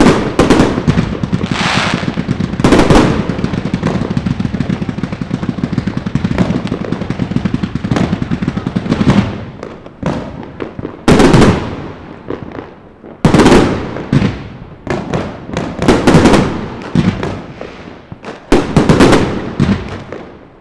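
Consumer fireworks going off. For the first nine seconds or so there is a rapid, unbroken crackle of reports, then a string of separate loud bangs, each dying away before the next.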